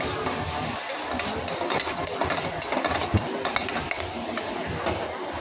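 Metal spatula scraping and clacking against a wok as Pad Thai noodles are stir-fried, in quick irregular strokes over a steady hiss of frying.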